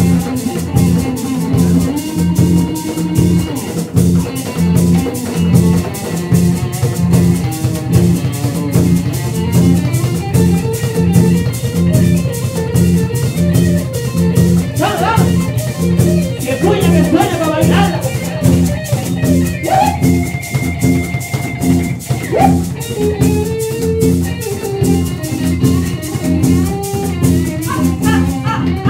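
Live band playing Colombian music: congas and a fast, even rhythm of high ticks under electric bass, guitar and keyboard.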